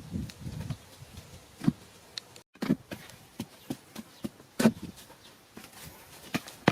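Scattered sharp knocks and taps at uneven intervals, the loudest about four and a half seconds in.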